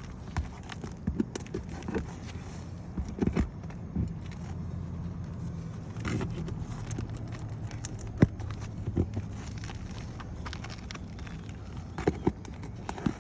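Irregular knocks, taps and clicks from hand work on an asphalt shingle roof as a wind-damaged shingle is worked loose for replacement, over a steady low hum.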